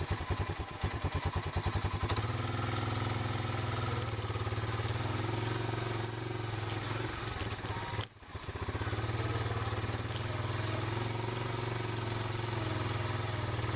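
A vehicle engine running: for the first two seconds it pulses at low speed, then it settles into a steady drone. There is a brief break just past the middle.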